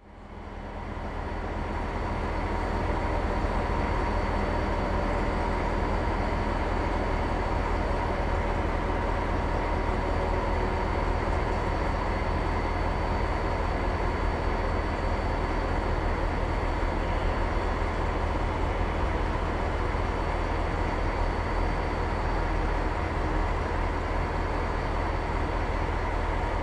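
SNCF BB 67400 diesel locomotive running steadily at low speed, a constant deep engine hum with a thin steady whine above it, fading in over the first couple of seconds.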